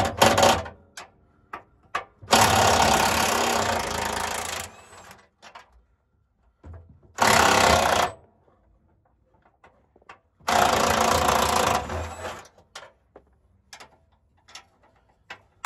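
Cordless impact wrench hammering in three bursts, the first about two and a half seconds long and the next two about a second each, loosening bolts under the vehicle during a transmission removal. Light clicks and clanks of the socket and tool sound between the bursts.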